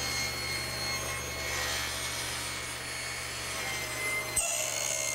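Table saw blade cutting slowly through a thick slab of dense mahogany, the motor running with a steady hum and the blade grinding under heavy load. A little over four seconds in the low hum breaks off briefly and the sound changes abruptly.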